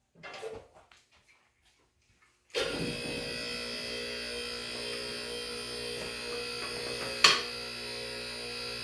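A few light knocks, then the electric motor and hydraulic pump of a QuickJack car lift start suddenly and run with a steady hum, raising the lawn mower. A single sharp clank sounds about seven seconds in.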